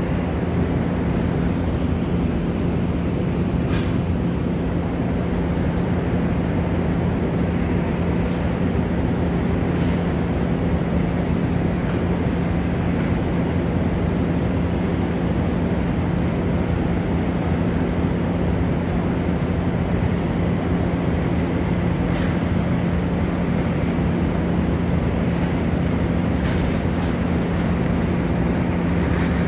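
Honda Gold Wing GL1500's flat-six engine idling steadily as the heavy touring bike is slowly manoeuvred.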